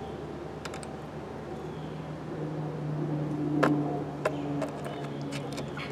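A few light metallic clicks of pliers on a hot bolt held pressed into a plastic mower air box, over a steady low hum that swells in the middle and then eases.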